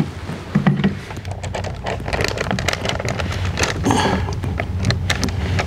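Irregular clicks and knocks of a termination bar, freshly beaded with sealant, being handled and pressed against a concrete block wall over the flashing. A steady low hum runs underneath.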